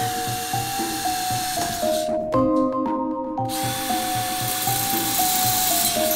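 Background music with a steady beat and a stepped melody, over the high hiss of a handheld power tool working metal. The tool runs for about two seconds, stops, and starts again about three and a half seconds in.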